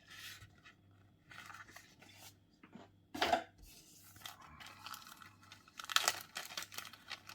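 Plastic or paper kit packaging crinkling and rustling as parts are handled, in irregular bursts with louder crackles about three seconds in and again around six seconds.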